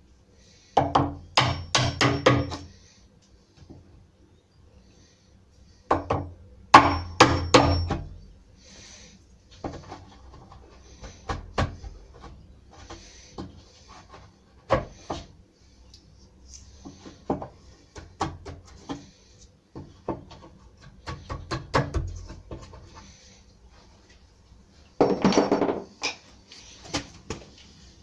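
Hammering on wood during door fitting: three bursts of quick, sharp blows, about a second in, around six to eight seconds, and near the end, with lighter scattered knocks between.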